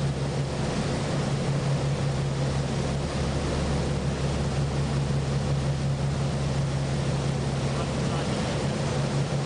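Motorboat engine running at a steady speed, a constant low drone, over the rush of water and wind.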